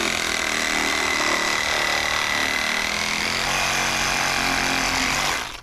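Handheld cordless power saw running steadily as it cuts through a white PVC pipe, with a constant high motor whine; it stops shortly before the end.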